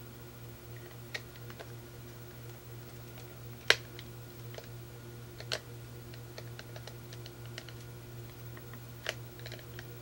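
Plastic housing of a DirecTV remote control clicking and creaking as the end cap is pried open by hand. Scattered light clicks, the sharpest snap about four seconds in, over a steady low hum.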